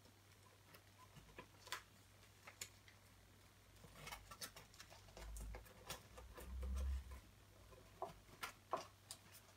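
Masking tape being unrolled and pressed around the card stopper on the end of a cardboard kitchen-roll tube: faint scattered crackles and ticks, with two dull low bumps a little past halfway.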